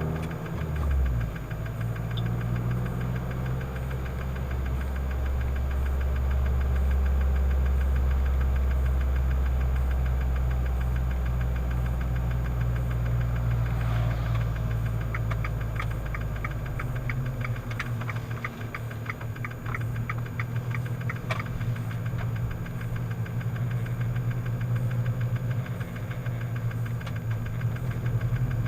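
Fiat 500 Abarth's turbocharged 1.4 engine running with an odd noise that does not follow revs, speed or gear, which the owner puts down to the ECU going through an adaptation phase. Partway through, a run of even ticks comes in at about three to four a second, and a deep low hum drops away about two-thirds of the way in.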